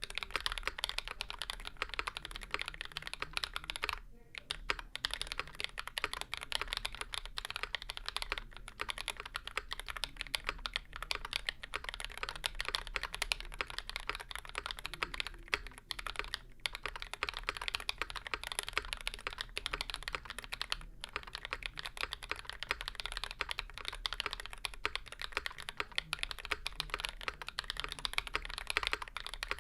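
Steady fast typing on a Percent Canoe Gen2 mechanical keyboard with YOK Burgundy switches, a 3mm aluminium plate and GMK keycaps: a dense run of clacky keystrokes, broken by short pauses every few seconds.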